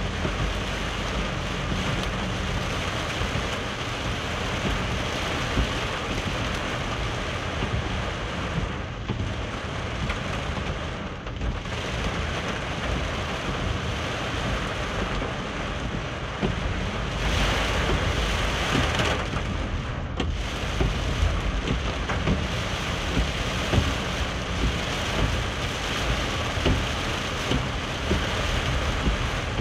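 Heavy rain beating on a car's roof and windscreen, heard from inside the cabin while driving on a wet road. A louder hiss rises for about two seconds, about 17 seconds in.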